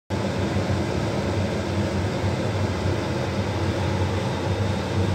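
A karahi of curd boiling hard on a gas burner as it cooks down into ghee: a steady, dense bubbling and rushing noise with a low rumble.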